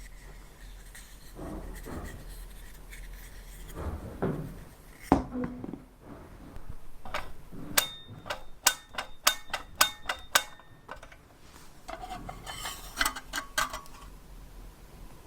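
Workbench handling noises: hard objects knocking, tapping and clicking, with a quick run of sharp clicks partway through and a few brief ringing clinks near the end.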